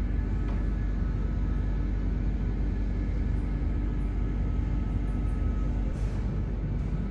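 Steady low rumble with a faint, even hum over it; a brief soft knock about six seconds in.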